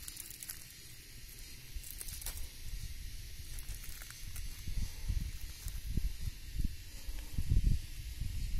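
Steady high hiss with low rumbling buffets on the microphone that grow stronger in the second half, loudest about seven and a half seconds in.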